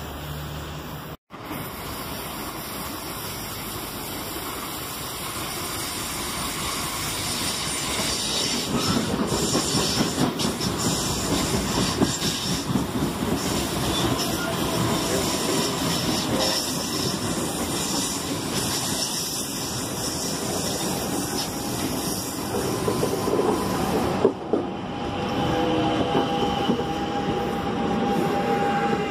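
CNR 3000-series electric multiple unit running past close by, with a steady rumble and uneven clatter of wheels over the rails. Near the end a steady electric whine comes in, with higher tones rising in steps.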